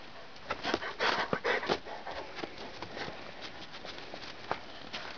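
Doberman crunching about in fresh deep snow close to the microphone: a flurry of crunches from about half a second to two seconds in, then fainter scattered crunches.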